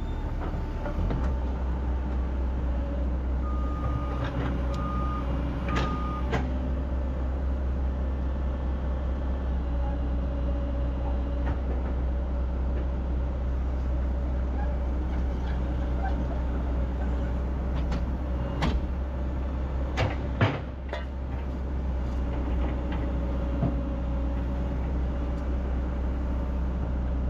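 Excavator diesel engine running steadily under load while a boulder is positioned. Three short high beeps sound about four to six seconds in, and a few sharp knocks come near the end.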